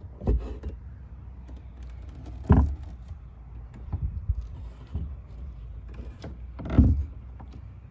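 Metal twist latch on a wooden chicken coop panel being turned by hand: scattered clicks and knocks, the two loudest about two and a half seconds in and near the end, over a low steady rumble.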